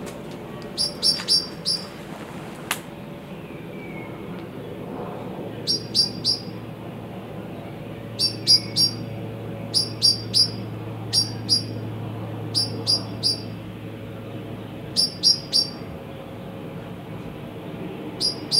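A small bird chirping, short high chirps in quick runs of two to four, repeated every couple of seconds. A low steady hum runs underneath, swelling a little around the middle.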